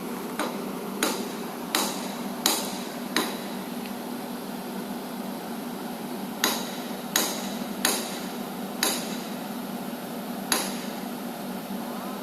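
Sharp, ringing knocks echoing across the night, about ten of them in two runs with a pause between. Each run has knocks roughly 0.7 s apart, and a steady low hum lies underneath.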